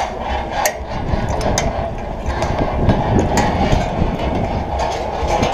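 Wind rumbling on a body-worn camera's microphone high on an open ship deck, with irregular clicks and clanks of ropes-course gear.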